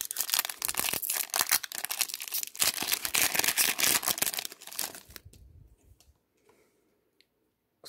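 Foil wrapper of an Upper Deck Series 2 hockey card pack being torn open by hand and crinkled, a dense crackling that stops about five seconds in. After that it is nearly quiet, with a few faint clicks.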